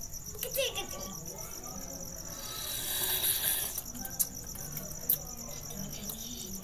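Crickets chirping steadily in a fast, even pulsing trill, with a few sharp clicks near the middle and a brief hiss swelling and fading just before them.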